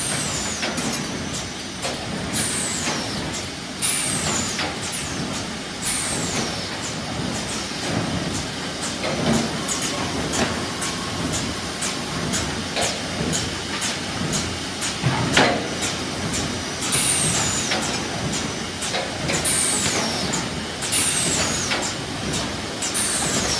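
Automatic turnover (flipper) machine for laminated corrugated board running. Steady machine noise with frequent clicks and knocks, and short high hissing sweeps that fall in pitch and recur every couple of seconds.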